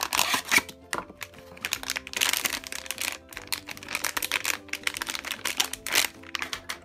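Metallised foil blind-bag wrapper crinkling and rustling in quick irregular crackles as it is pulled from its cardboard box and squeezed in the hands, over light background music.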